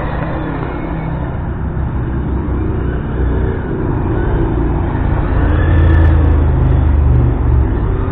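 RC car running on asphalt: a steady noise of drivetrain and tyres, under the faint rising and falling revs of an engine-sound simulator module. The sound grows louder from about five and a half to seven and a half seconds in.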